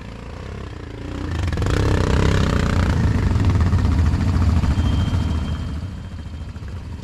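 ATV (quad bike) engine running close by. It grows louder about a second in, holds for several seconds, then eases off near the end.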